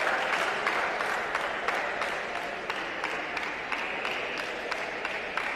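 Spectators applauding, a dense patter of many hands with single claps standing out; it gradually eases off.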